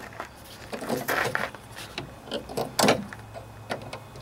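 Scattered metal clinks and knocks as a gloved hand works a steel extension spring onto the idler pulley arm's mounting post of a DR field and brush mower, with a louder knock about three seconds in.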